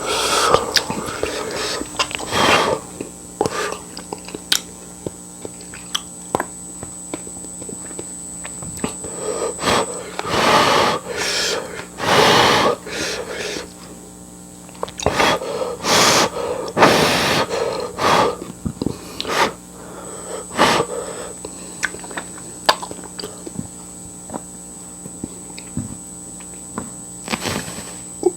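A person eating fiery-hot instant noodles and pig's feet: many small clicks and smacks of chewing and utensils, broken by about half a dozen short, loud, breathy bursts of slurping and sharp breathing through the heat. A faint steady hum sits underneath.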